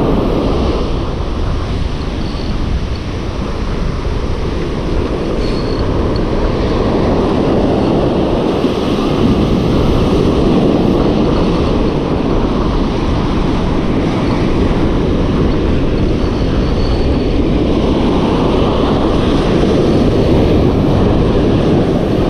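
Waves breaking on a sandy beach, mixed with steady wind rumble on the microphone: a continuous rushing noise.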